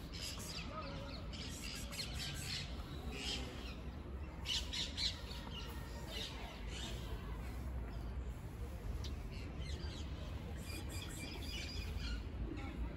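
Small birds chirping in short, scattered calls throughout, over a low steady background rumble.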